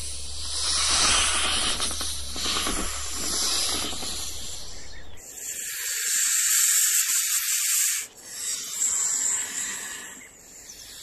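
Loud breathy hissing that swells and fades in several surges. The low part of the sound drops out for a few seconds in the middle, then the hiss goes on.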